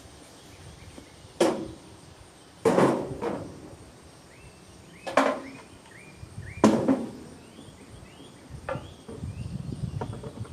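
Four sharp knocks of hard objects set down, spaced a second or two apart, each ringing briefly; after them, scuffling footsteps and rustling, with a few short bird chirps in between.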